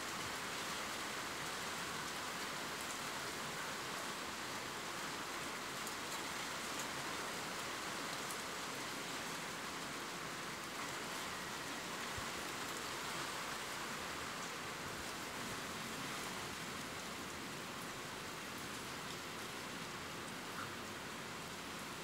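Steady rain falling: an even hiss with faint, scattered drop ticks.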